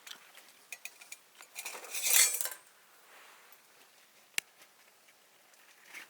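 Metal utensils and cookware clinking and clattering: a few light clinks, a louder rattle lasting about a second around two seconds in, and one sharp click past the four-second mark.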